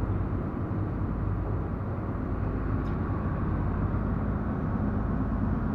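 Fishing boat's engine running steadily while the boat is under way, a low even drone.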